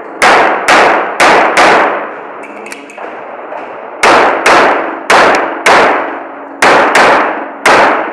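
Semi-automatic pistol fired in quick pairs, about half a second between the two shots of each pair, eleven shots in all, with a pause of about two seconds after the first four. Each shot rings and echoes off the concrete walls of an indoor range.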